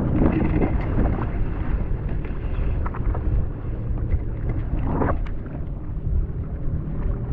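Jet ski engine running at low speed, a steady low hum, with wind buffeting the microphone. There is a brief louder rush of noise about five seconds in.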